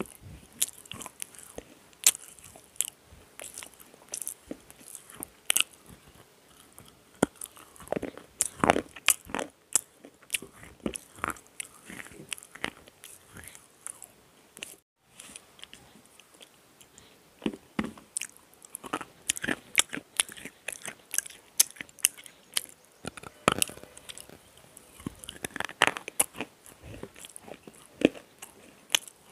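Close-miked biting and chewing of a slate pencil bar: irregular sharp crunches and gritty chewing of the brittle slate, with a brief silent gap about halfway through.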